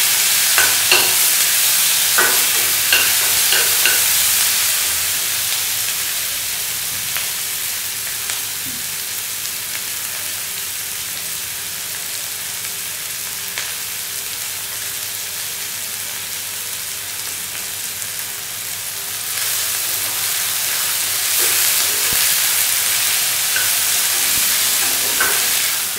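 Chopped onions, tomato and ginger-garlic paste sizzling in hot oil in a metal kadai as they are sautéed, with a metal ladle scraping and clinking against the pan, mostly in the first few seconds. The sizzle softens in the middle and grows louder again about three-quarters of the way through.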